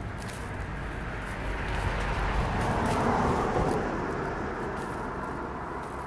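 Rustling and small snaps of rose-bush leaves and twigs as rosehips are picked by hand, over a low outdoor rumble that swells and fades about halfway through.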